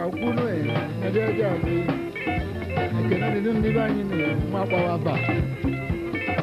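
Highlife dance band playing with a steady beat.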